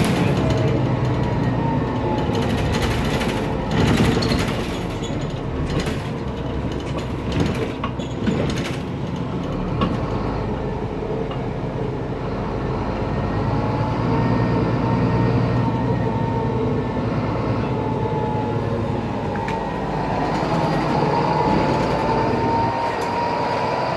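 Mercedes-Benz Citaro O530 bus's OM906LA turbo-diesel engine running under way, its pitch rising and falling with the load, with a thin whistle that rises again near the end, which the uploader puts down to a faulty turbocharger. A cluster of knocks and rattles sounds in the first third, the noisy loose part the uploader points out.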